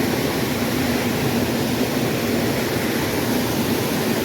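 Steady rush of a mountain trout creek's flowing water.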